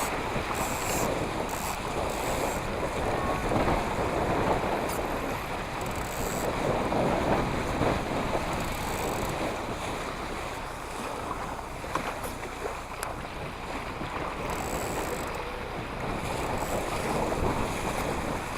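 Wind buffeting the microphone over water splashing and lapping against a small sailing boat, with brief crackling splashes now and then.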